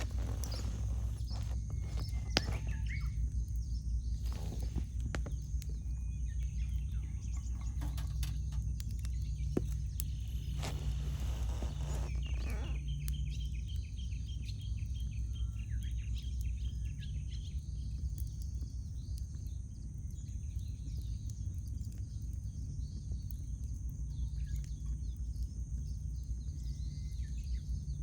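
Wood campfire crackling with scattered sharp pops, over a steady low rumble, while wild birds chirp and call in the background, a run of rapid repeated chirps coming about halfway through.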